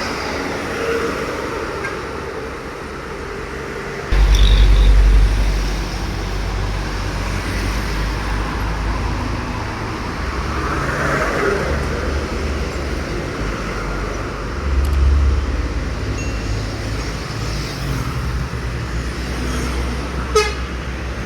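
Road traffic with heavy trucks passing, a steady engine and tyre noise. A loud deep rumble starts suddenly about four seconds in and eases off after a second or two, with another swell later on.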